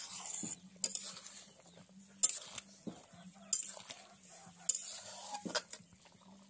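Flat metal spatula stirring chicken curry in a metal cooking pot, knocking and scraping against the pot about once every second or so, over a steady hiss.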